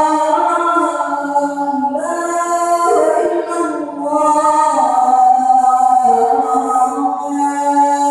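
Several voices singing a cappella in harmony, with held, changing notes and no instruments.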